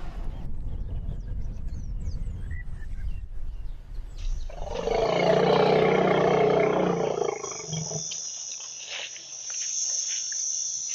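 An African elephant gives a loud, rough roaring call about four seconds in, lasting some three seconds, over low rumbling noise. A steady high insect buzz follows it.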